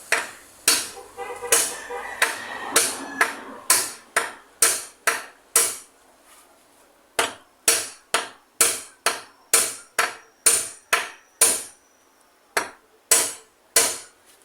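Hammer blows in a steady run, about two a second, with short pauses about six seconds in and again near twelve seconds.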